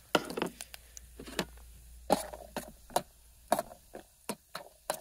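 Almonds and cashews frying in hot oil in an aluminium camping pot: short, sharp pops and clicks at irregular spacing, two or three a second, with a spoon stirring them in the pot near the end.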